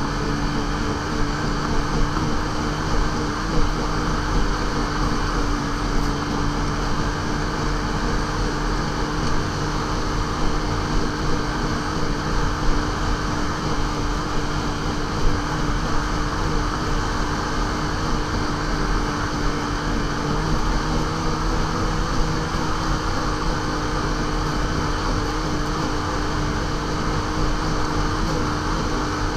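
Yamaha SRViper XTX snowmobile's three-cylinder four-stroke engine running at a steady cruising speed, its pitch holding level throughout.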